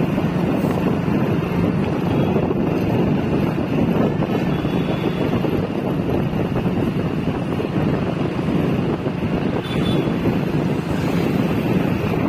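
Steady wind rushing over the microphone of a moving motorbike, with the bike's engine and road noise running underneath.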